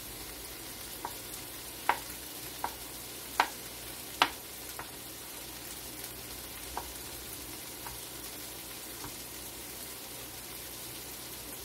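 A kitchen knife cutting cooked chicken on a bamboo cutting board, making sharp, irregular knocks, the loudest about two, three and a half and four seconds in, over the steady sizzle of vegetables frying in a skillet.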